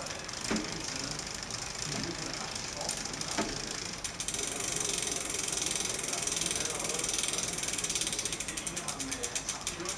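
Bicycle drivetrain turning in a stand: the chain runs over the rear derailleur pulleys with a few sharp clicks, uploader thinks that is probably normal chain and pulley noise. About four seconds in the pedalling stops and the Shimano rear hub's freehub pawls buzz in a rapid ratchet as the wheel coasts, the ticking slowing near the end.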